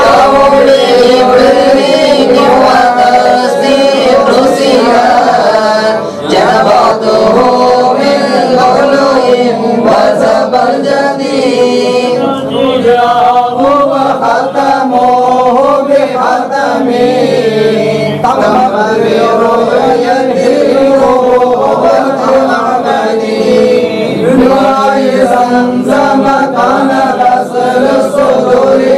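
Men's voices chanting an Arabic mawlid hymn in praise of the Prophet Muhammad together, in a slow melody that rises and falls without pause.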